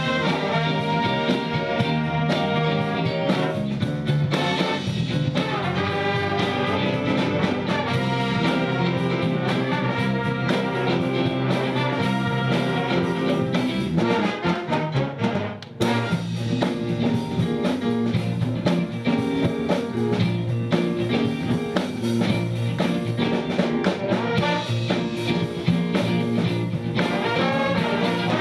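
Live big band with saxophones, trumpets and trombones playing a jazz-funk tune, the brass section prominent. About halfway through the band drops out briefly, then comes back in sharply.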